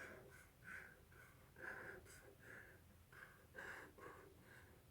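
Near silence, with faint short strokes of a pen on paper as a diagram is drawn.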